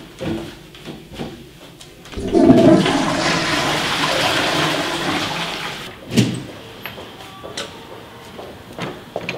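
Toilet flushing: a loud rush of water starts about two seconds in, gurgling at first, then fades over about four seconds. A sharp knock follows just after the water dies away.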